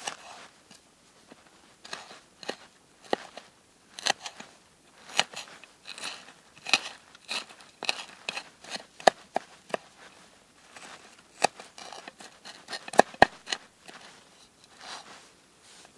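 Knife chopping fresh green herbs on a wooden board: irregular crisp cuts through the leaves, with the blade now and then knocking sharply on the wood, loudest in a quick pair of knocks near the end.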